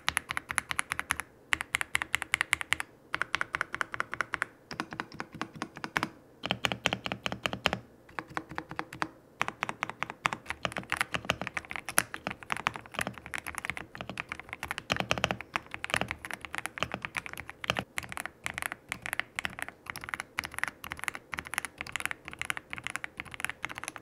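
Fast, continuous typing on a Dareu EK75 Pro mechanical keyboard with linear switches and well-tuned stabilizers, giving a creamy, thocky keystroke sound. There are a few brief pauses in the first several seconds.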